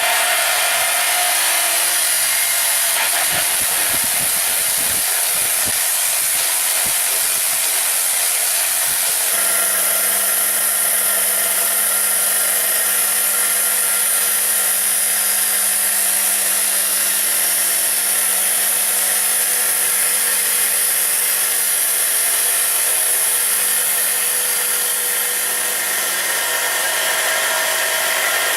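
Diamond saw on a stone-copying machine cutting hard red porphyry, a loud steady high-pitched grinding. About nine seconds in, irregular low knocking gives way to a steady low hum.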